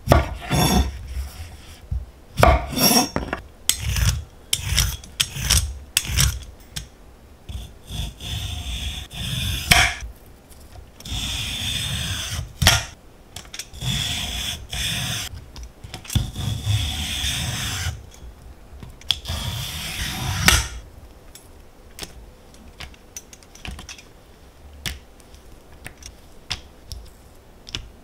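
Food being cut on a wooden cutting board: a string of sharp knocks, then several long sawing strokes, each a second or two, before it settles into small, soft handling sounds.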